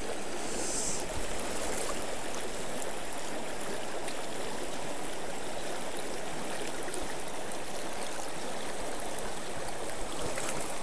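Steady rush of a shallow, fast mountain river flowing over rocks.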